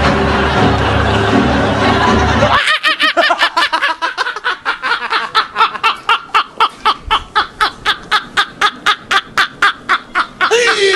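Music with a steady bass, cut off after about two and a half seconds. Then men laughing hard, a long run of even 'ha' sounds at about four a second.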